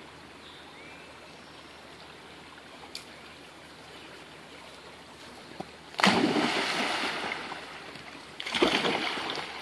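A dog jumping off a creek bank into the water with a sudden loud splash about six seconds in, followed by a second splash about two and a half seconds later.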